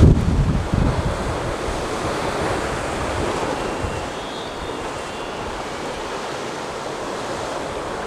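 Sea surf washing against a rocky shoreline, a steady rushing noise, with wind buffeting the microphone in gusts during the first second.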